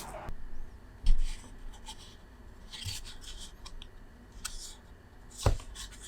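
Irregular short scraping and rubbing strokes of a hand tool working a hole into a 3D-printed plastic keyboard case, with a couple of dull knocks.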